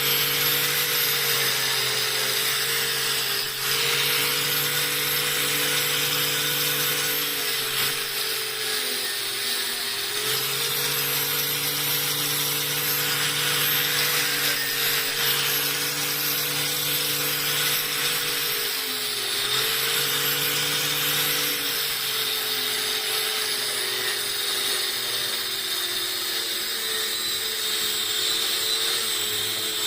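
Electric power tool motor running steadily, its pitch sagging and recovering a few times as the tool is pressed into work.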